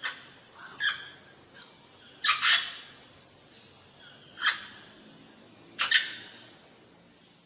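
A bird giving short, harsh calls, about six of them, some in quick pairs, a second or two apart, over a faint steady high-pitched hiss.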